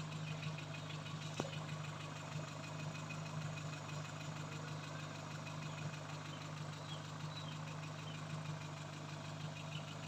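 Toyota 2E inline-four carbureted engine idling steadily, kept running for a soapy-water vacuum leak test on its hoses and carburetor, with one faint click about a second and a half in.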